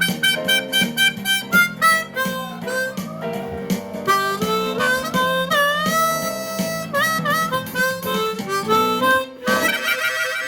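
Blues harmonica played over acoustic guitar: rhythmic chords at first, then long bent notes in the middle, and a busy final flourish near the end.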